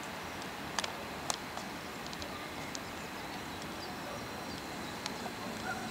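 Railway station ambience: a steady background hiss with a few brief sharp clicks or chirps, two about a second in and one near the end.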